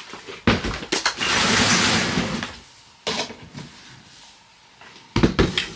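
Small belongings being handled and sorted: a few sharp knocks and clatters, with a rustle lasting about a second and a half near the start.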